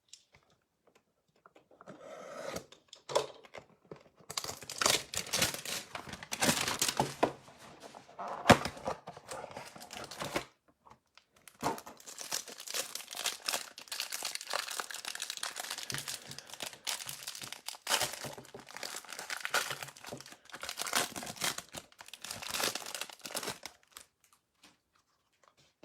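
Packaging of a trading-card hanger box being torn open: wrapper crinkling and tearing in irregular bursts, with a few thunks and a short pause about halfway through.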